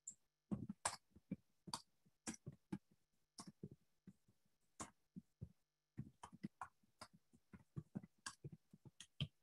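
Faint, irregular clicks and taps, several a second, with short gaps between clusters.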